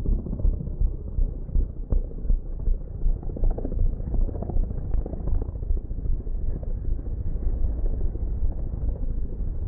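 Firefighting helicopter flying overhead, its rotor blades beating in a steady, rapid low chop.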